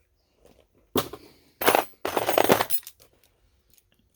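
Loose metal sewing machine presser feet clinking against one another as they are handled and dropped among the others: one sharp clink about a second in, then a rattle lasting about a second.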